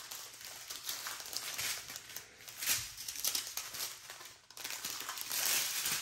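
Strips of small clear plastic bags holding resin diamond-painting drills crinkling and rustling as they are handled, with a brief lull about four and a half seconds in.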